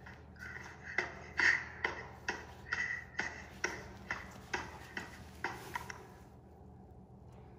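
A run of sharp, evenly paced clicks, about two a second, that keep time with arm circles and stop about six seconds in.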